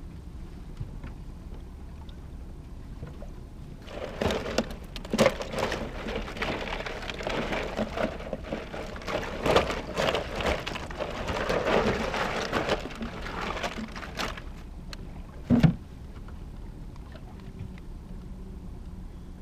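Steady low hum of the fishing boat's motor while trolling, with several seconds of rustling and clattering as gear is handled in the boat, and one sharp knock near the end.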